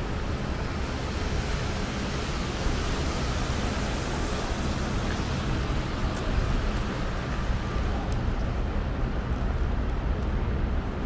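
Steady rushing noise outdoors on a city street in a snowstorm, wind on the microphone mixed with traffic, swelling for a few seconds in the middle.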